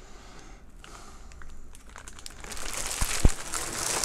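Clear plastic wrapping crinkling as a large LED ring light in its bag is handled and laid down, quiet at first and then crackling more from about halfway, with a short knock near the end as it is set down.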